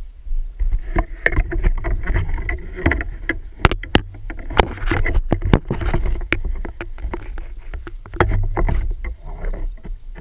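Frog gig with a camera strapped to it being thrust and dragged through brush and leaves: rustling with many sharp knocks and clatters over a low handling rumble.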